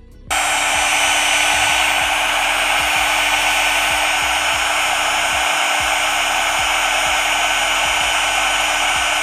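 Heat gun blowing steadily to shrink heat-shrink wire connectors: a loud airy rush over a steady motor hum, switched on just after the start.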